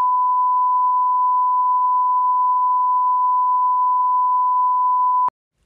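Steady electronic test-tone beep of the kind played with a TV colour-bar screen, one unbroken pitch at constant loudness, stopping abruptly near the end.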